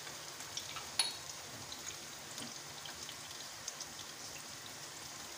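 Onions and raw chicken mince sizzling in oil in a wok: a steady hiss with scattered small crackles. A single light metallic clink about a second in.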